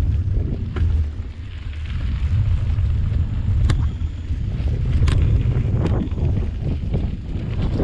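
Wind buffeting the microphone of a camera on a moving mountain bike, a loud low rumble that swells and dips with the riding over dirt singletrack. A few sharp clicks from the bike stand out about halfway through.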